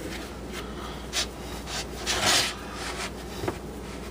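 Hands pressing and stretching pizza dough on a wooden cutting board: soft scuffs and light knocks, with one longer rubbing sound a little past halfway.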